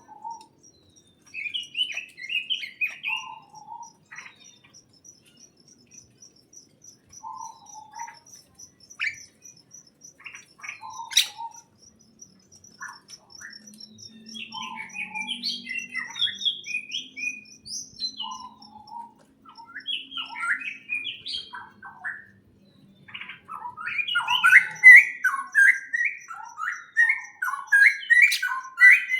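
Birds chirping and twittering in short phrases, with a brief lower note repeated every three or four seconds and a fast run of high ticks for the first two-thirds. The chirping becomes busier and louder over the last several seconds.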